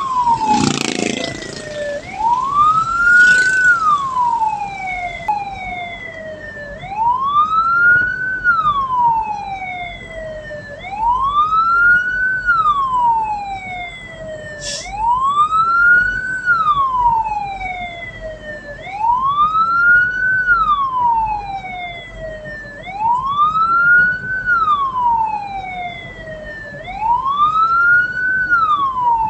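Hearse siren wailing: a tone that rises quickly, then falls slowly, repeating about once every four seconds, over the low running noise of the vehicle.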